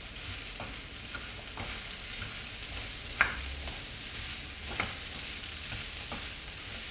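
Sliced potatoes with poppy seeds sizzling in mustard oil in a frying pan as they are stirred. Occasional clicks and scrapes of the stirring utensil against the pan sound over the steady sizzle, the sharpest about three seconds in.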